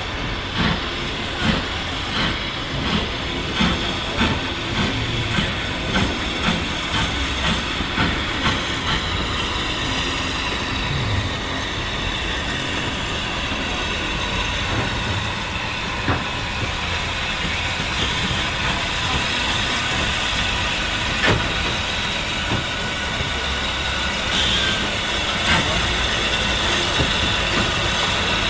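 Lancashire & Yorkshire Railway A class 0-6-0 steam locomotive 52322 working slowly, with exhaust beats about two a second for the first nine seconds or so, which then fade as it drifts on under a continuous steam hiss. A few sharp clicks of wheels on rail joints are heard.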